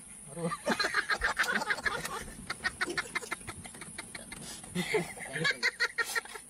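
People's voices in fast, choppy chatter, over a steady high insect hiss.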